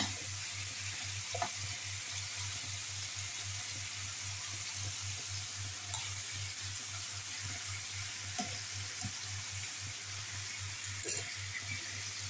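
Bone-in meat chops searing in a frying pan, a steady sizzling hiss with a few small spatter pops, as the meat browns.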